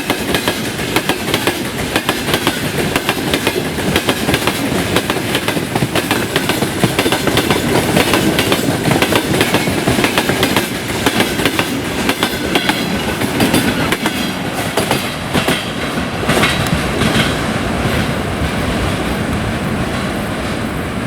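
Freight train wagons rolling past on the rails, the wheels clattering over the rail joints in a dense, steady clickety-clack.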